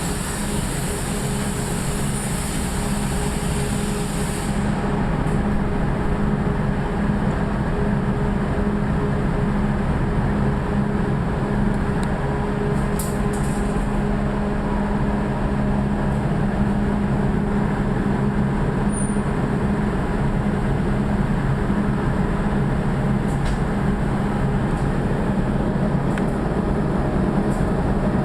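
Cable-making factory machinery running with a steady, even hum. A high hiss cuts off about four seconds in, and a few faint clicks sound later.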